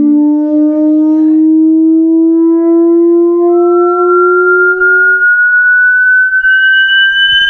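Sony SRS-XV900 party speaker playing a loud frequency-sweep test tone that climbs slowly and steadily in pitch, with several overtones above it. The lower tone fades out about five seconds in while a higher, thinner tone keeps rising.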